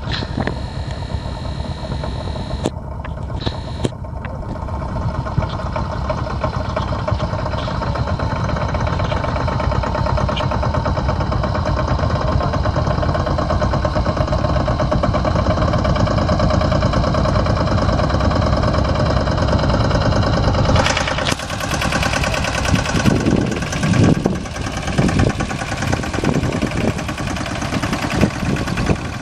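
Engines of several motorcycle-based three-wheel mini tractors (sanedo) running steadily as they drive together across a tilled field. About two-thirds of the way in the sound changes and becomes closer, with uneven low surges.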